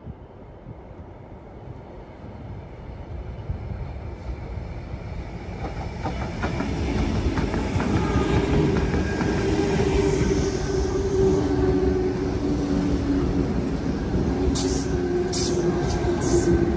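Sydney Trains Tangara electric train approaching and running into the platform, growing steadily louder as it nears, with a steady whine from its running gear once it is alongside. A few short hisses come near the end as it slows at the platform.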